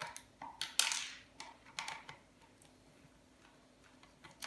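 Hand screwdriver working screws out of a nebuliser's plastic casing: a quick run of clicks and short scrapes over the first two seconds, then a pause, with another click near the end.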